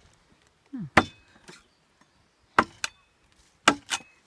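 Hand-tool blows striking material: about five sharp, separate hits at an uneven pace, two of them in quick pairs.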